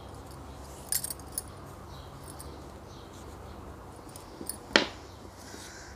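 Hand crocheting with wool yarn: a few faint clicks and light handling noises from the hook and yarn, a small cluster about a second in and a sharper click near the end, over a steady low hum.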